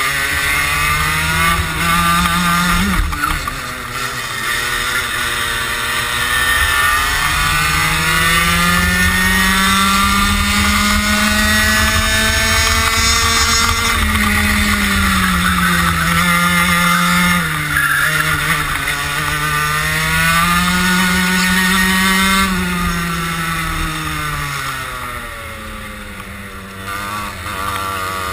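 Onboard racing kart engine running hard, its revs climbing on the straights and dropping for the corners several times over, with its deepest, quietest dip a few seconds before the end before it picks up again.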